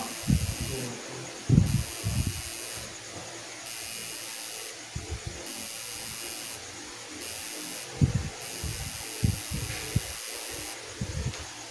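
Electric tattoo machine buzzing in short runs of about a second, stopping and starting over and over as the needle is worked into the skin, with low knocks of handling; it stops near the end, the tattoo finished.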